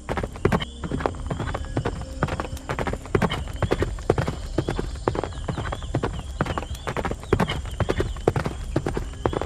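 Horse hooves clip-clopping in a steady, quick run of hoof beats.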